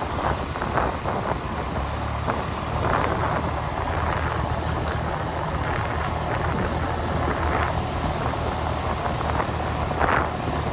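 A vehicle's engine running steadily with road noise, heard from the vehicle as it drives along.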